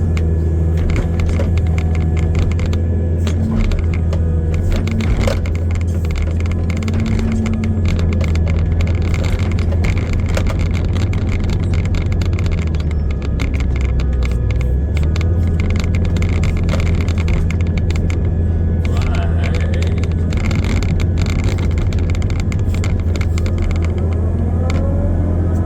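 Heavy earth-moving machine's engine running steadily under load with a deep, constant hum, overlaid by many small rattles and clicks from the machine.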